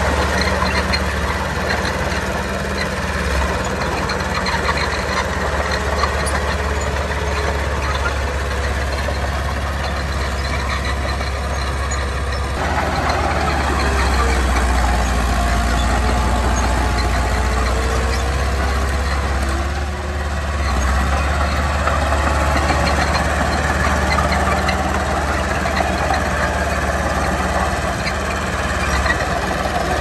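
Engines of heavy earthmoving machinery running, a steady low drone, with the sound's make-up changing about twelve seconds in.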